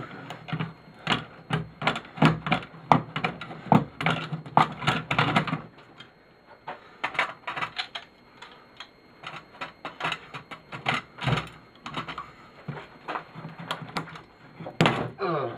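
Irregular clicking and knocking of metal parts being worked and pried loose by hand and tool as a transformer is pulled off a garage door opener's frame, busiest in the first half and sparser later.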